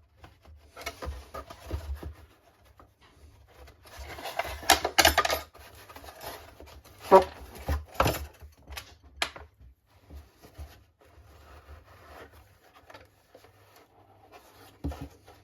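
Small plywood model-boat parts being handled, rubbed and scraped on a workbench while being trimmed and test-fitted, with a cluster of sharp wooden knocks and clicks about five seconds in and single knocks a few seconds later.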